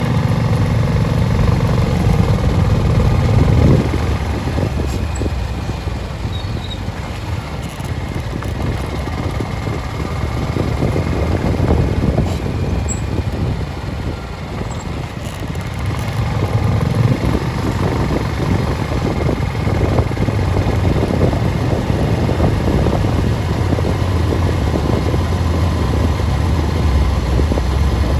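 A vehicle travelling along a road: a steady low engine and road rumble with a rough, rushing noise over it, louder in the first few seconds and again from about halfway on.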